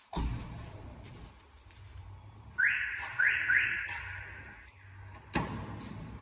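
A car door shuts with a thud, followed by a low steady hum. About two and a half seconds in come three short high squeals in quick succession, and another thud like a second car door closing comes near the end.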